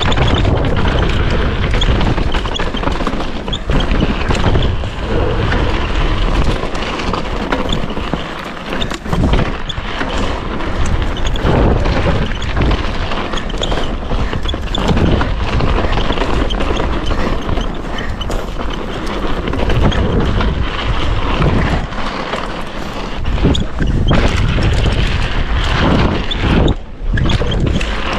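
Wind buffeting the camera microphone over the rumble of Scott Ransom mountain bike tyres on a frosty, icy gravel track, with frequent knocks and rattles as the bike rides over bumps.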